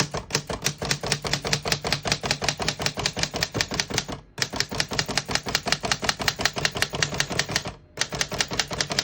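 1915 Corona Folding portable typewriter typing a fast, even run of keystrokes, the type bars striking the platen about seven times a second, with two brief pauses.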